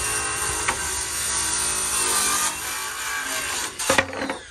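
Cordless power saw cutting through a wooden door jamb, its motor running steadily under load, then a sharp clatter about four seconds in as the cut-off piece of jamb falls onto the concrete.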